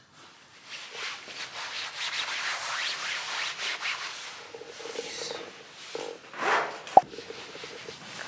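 Handling noise: a handheld camera's microphone rubbing and scratching against a padded jacket, with one sharp click about seven seconds in.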